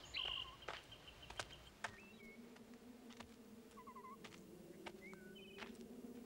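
Faint jungle ambience of insects and birds: scattered sharp clicks, short chirps and trills, and a low steady buzzing drone starting about two seconds in.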